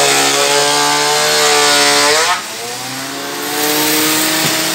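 A loud motor-driven machine running with a whining hum and a rushing noise over it. About halfway through its pitch rises, the rushing noise cuts off and it goes quieter, then a lower hum slowly climbs back up.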